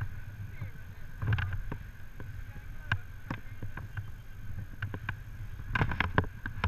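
Low wind rumble on the microphone, with scattered sharp clicks and knocks from abseiling gear and handling, including a quick cluster about six seconds in.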